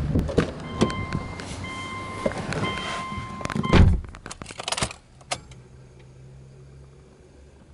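Subaru Legacy B4's warning chime sounding in a repeating pattern of even tones with the driver's door open, ended by a loud thud of the door shutting about four seconds in. A few sharp clicks follow as the key is turned and the dash lights up, then a faint low hum before the engine is started.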